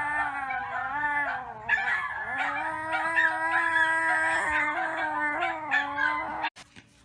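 Dog howling in two long, steady notes with a short break between them. The sound cuts off abruptly near the end.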